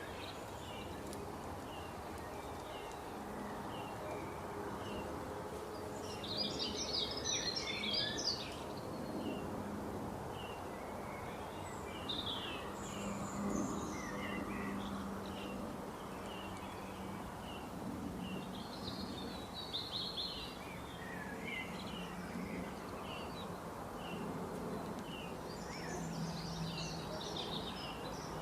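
Birds chirping over steady background noise. One bird repeats a short high chirp a little more than once a second, while others break into bursts of busy twittering song four times.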